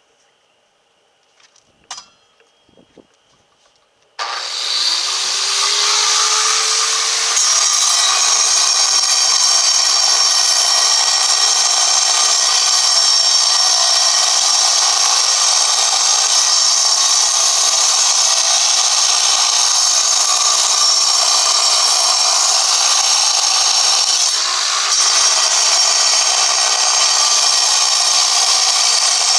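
Large angle grinder starting up about four seconds in, its motor rising in pitch over a few seconds, then grinding stone steadily and loudly, with a brief dip shortly before the end.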